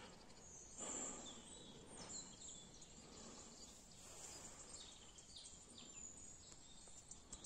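Near-silent outdoor morning ambience with faint, scattered bird chirps and a brief soft rustle about a second in.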